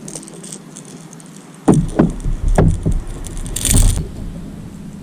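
A run of heavy thumps and knocks against a kayak, with a crackly rattle near the end, starting a little under two seconds in and lasting about two seconds.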